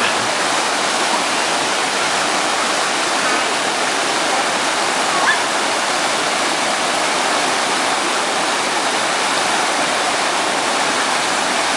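River water rushing over rocks in a small cascade, a steady, even rush.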